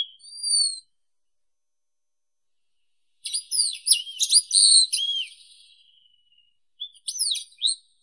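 Wallcreeper singing: thin, high whistles. A short falling note comes right at the start, then after a pause a quick run of whistled notes sliding up and down, and another short phrase near the end.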